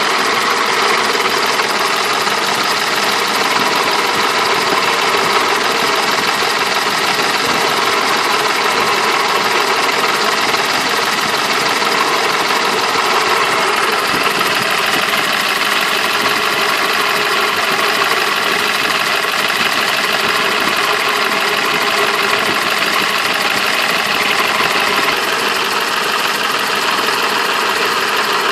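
BMW M20 B27 2.7-litre straight-six engine idling steadily with a knock in it.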